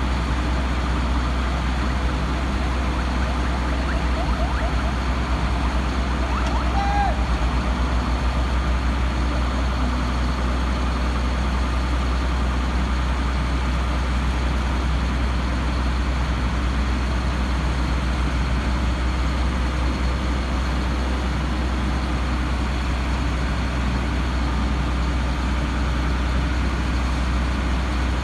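Heavy diesel engine running steadily at an even speed.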